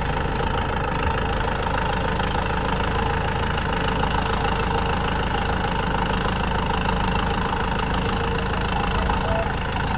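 Kubota M6040SU tractor's four-cylinder diesel engine running steadily at idle.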